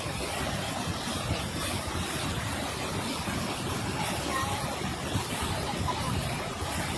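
Heavy rain falling, a steady even rush of noise.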